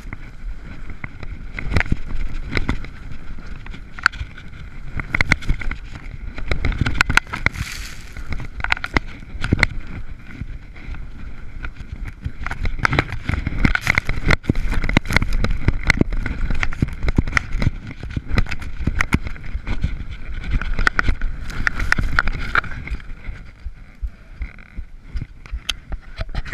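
Skis scraping and chattering over firm, chopped-up snow on a fast, steep descent, with many sharp scrapes and clicks over a low rumble of wind buffeting the camera's microphone. It quietens near the end.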